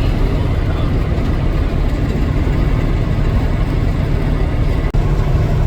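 Steady low rumble of a vehicle's engine and road noise while driving along a highway, dropping out for an instant about five seconds in.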